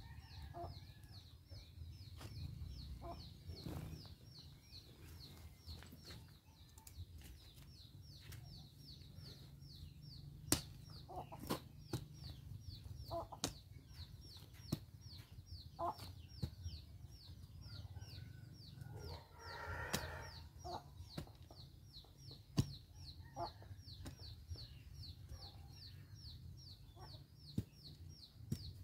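Long steel digging bar being driven into the soil around a bougainvillea's trunk, cutting through its roots: sharp knocks every second or two. Chickens cluck in the background over a high chirp repeating about three times a second.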